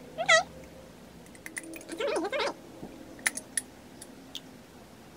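A spoon clicking and scraping against a small glass baby-food jar, a handful of light separate clicks. Two short hummed vocal sounds stand out as the loudest: a brief high one about a third of a second in, and a wavering lower one around two seconds in.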